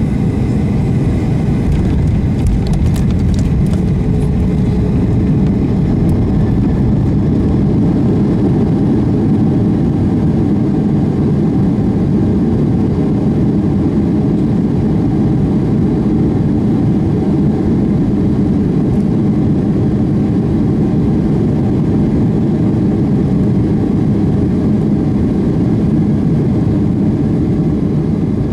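Cabin noise inside a Boeing 737-800: a steady, loud rumble of its CFM56-7B jet engines and the airflow, heard from a window seat over the wing, without any clear change in power.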